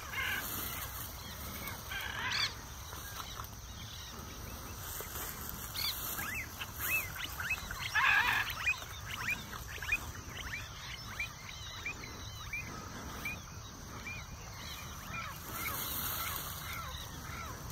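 Wild birds calling: many short, sharp calls, busiest and loudest about eight to eleven seconds in, over a steady high hiss.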